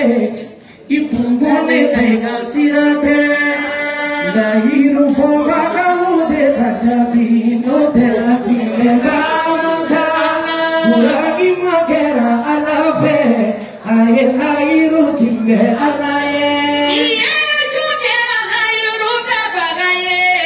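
A man and a woman singing through microphones in long melodic phrases with held, wavering notes. The singing breaks off briefly just after the start and again about two-thirds of the way through.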